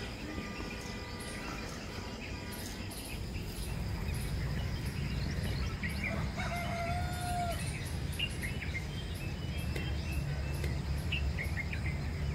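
Rural outdoor ambience: birds chirping and a steady insect drone, with a rooster crowing once about six seconds in. A low rumble grows louder from about four seconds in.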